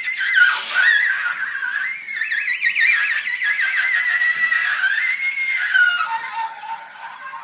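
A wind instrument in free-jazz improvisation playing a high, wavering line with a wide, fast vibrato that slides up and down. About six seconds in it drops to a lower, softer note.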